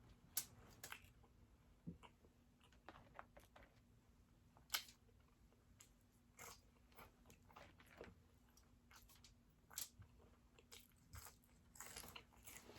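Faint close-miked chewing and biting of food: irregular small crunches and mouth clicks.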